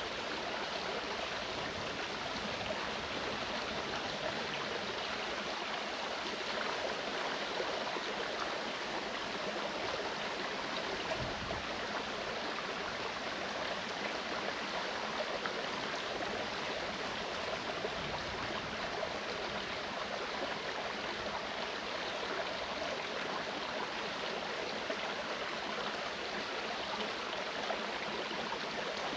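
Clear mountain stream rushing and burbling over rocks, a steady, even flow of water.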